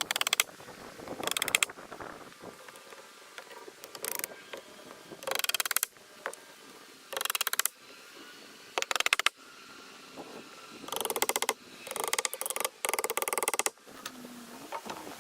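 Rapid ratchet-like clicking in short bursts of about half a second, repeated about ten times at irregular intervals.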